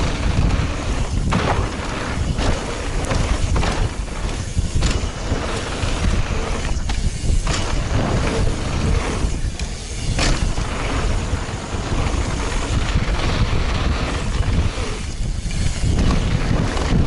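Wind rushing over an action camera's microphone as a mountain bike descends a dry dirt trail at speed, with rumbling from the tyres on the hardpacked dirt. Now and then the bike clatters over bumps.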